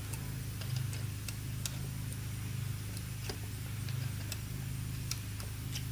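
A HeliCoil insertion tool being turned by hand, threading a coil insert into an aluminium engine case, gives scattered faint metallic ticks over a steady low hum.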